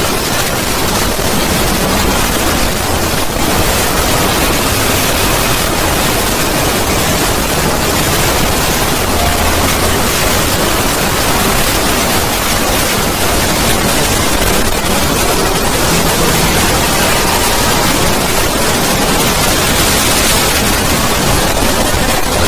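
Loud, harsh wall of digitally distorted noise, steady and without any clear pitch, that cuts off suddenly at the very end.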